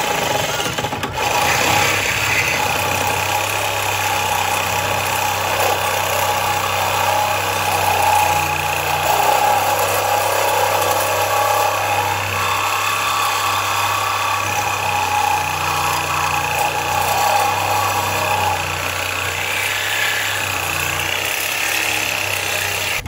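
Handheld corded electric power tool cutting at the steel front end of a pickup truck's frame, its motor running steadily under load.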